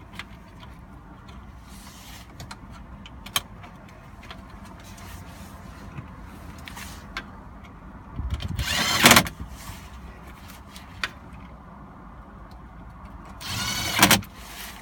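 Cordless drill/driver whining in two short runs, about eight and thirteen seconds in, driving two screws into the console base. Small clicks and handling noises in between.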